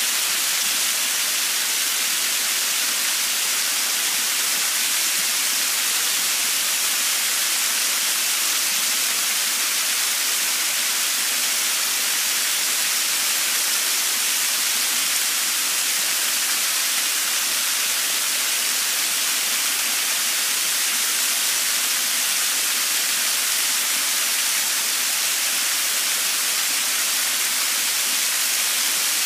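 Small waterfall splashing steadily, creek water falling in many thin streams over a mossy rock ledge onto the rocks below, a constant hissing rush with no change in level. The creek is running high after autumn rains.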